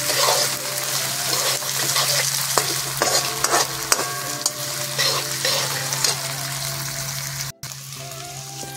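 Diced potatoes, onions and green chillies sizzling in hot oil in a steel kadai, with a metal slotted spatula scraping and clinking against the pan every second or so as they are stirred.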